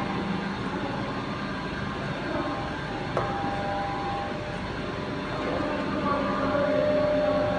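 Machine-shop machinery running: a steady mechanical rumble with a few held whining tones, and a single sharp metallic knock about three seconds in.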